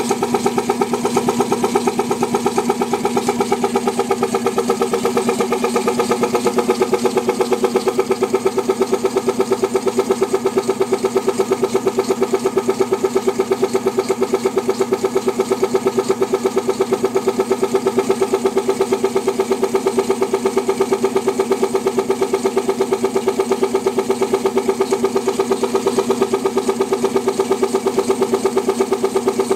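Late-1930s McCormick-Deering single-cylinder milker vacuum pump, belt-driven by a half-horsepower Wagner electric motor, running steadily with an even, rapid beat of piston strokes.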